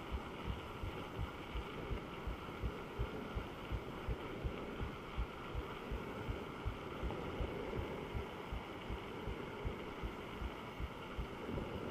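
Mountain bike rolling along a tarred road: steady tyre and wind noise with a regular low thump about three times a second.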